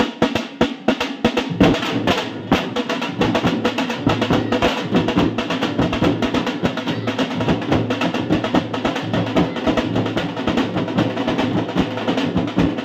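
A troupe of dhol drums beaten together with sticks and hands. There are a few separate heavy beats at first, then a fast, dense rhythm of strokes that runs on without a break.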